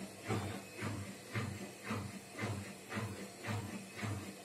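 A cat purring right at the microphone, a steady rhythmic purr that swells and fades about twice a second.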